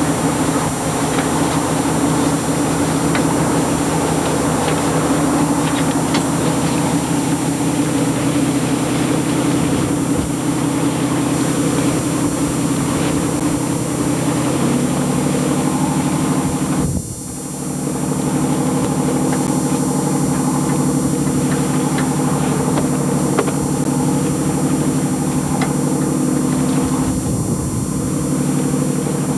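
Boat engine running steadily, its pitch stepping up about halfway through, with a brief dip a couple of seconds later.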